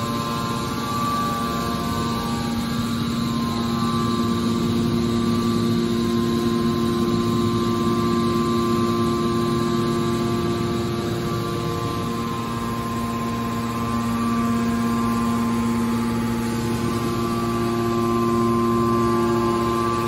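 Hydraulic power unit of a steel baler shear running at a standstill: the electric motor and hydraulic pump give a steady hum with a few whining tones over a rushing noise, the tones a little weaker in the middle.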